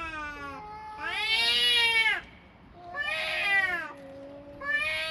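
Two cats meowing in long, drawn-out calls, trading and overlapping, one voice higher-pitched than the other; about four calls, with short gaps between them.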